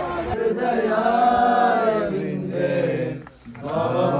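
Voices chanting a devotional chant in long held notes, with a short break about three seconds in.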